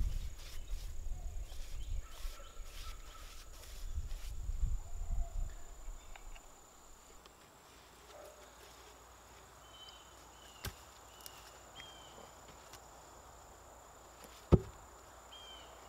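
Handling of a heavy 8x8 wooden post: low bumps and rumble in the first few seconds, then a single sharp knock near the end as the post is stood in its hole. A steady high insect buzz with short high chirps runs under it.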